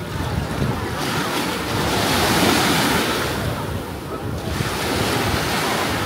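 Sea waves breaking and washing up the beach, the wash swelling about two seconds in and again near the end, with wind buffeting the microphone.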